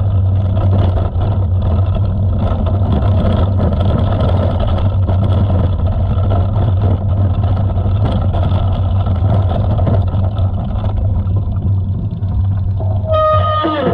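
Wind rumbling on a helmet- or bike-mounted GoPro's microphone, mixed with mountain-bike tyres rolling and crunching over a gravel road. Near the end, a brief high squeal falls in pitch.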